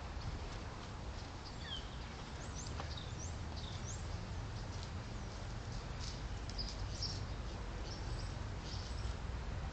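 Small birds chirping: short, high calls scattered all through, over a steady low rumble.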